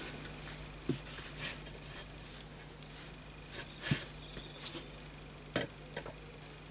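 A few faint, scattered metal clicks and taps as pliers are fitted and worked on the small screw spigot of an air rifle's steel bolt-action assembly. The loudest click comes about four seconds in.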